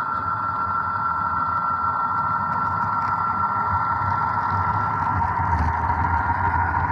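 Model Santa Fe diesel locomotives rolling past. Their sound decoders play a running diesel engine over a steady whine and the rumble of wheels on the track, the rumble getting a little louder near the end.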